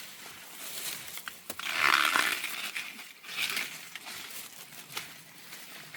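Dry corn leaves and husks rustling and crinkling as an ear of corn is pulled off the stalk. The loudest rustle comes about two seconds in and a shorter one a little after, with a few sharp snaps.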